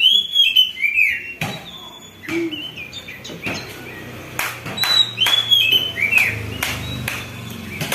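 A songbird chirping a series of short, arching whistled notes, with scattered sharp clicks or taps between them.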